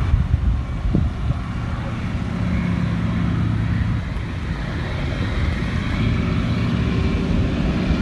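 Single-engine propeller plane's engine running steadily on its landing approach, with wind rumbling on the microphone.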